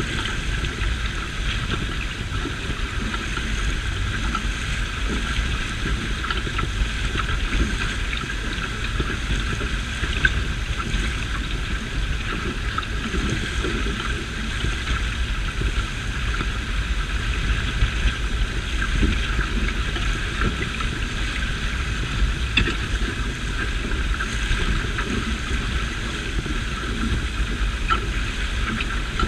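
Wind buffeting the microphone in a steady low rumble, over the hiss and splash of water rushing along the hull of a small trailer-sailer yacht under sail.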